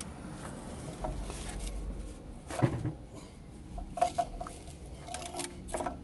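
Metal clicks and clinks of a 3/8-inch drive ratchet on an oxygen sensor socket, worked counterclockwise to loosen the upstream (bank 1 sensor 1) O2 sensor from the exhaust manifold. A sharper knock comes about two and a half seconds in, and a run of small clicks comes near the end.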